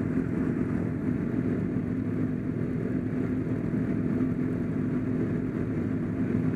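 A racing motorcycle engine running at a steady, unchanging speed.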